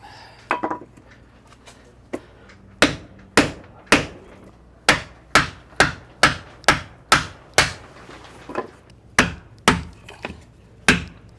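Hammer blows on wood, about fifteen sharp strikes at roughly two a second, knocking wooden shims and blocking in under a boat's keel.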